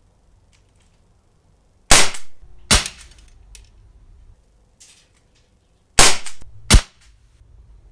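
KJ Works MK2 CO2 airsoft pistol firing four sharp shots in two pairs, each pair just under a second apart. It is a non-blowback, double-action pistol, so each shot is a gas pop with no slide cycling.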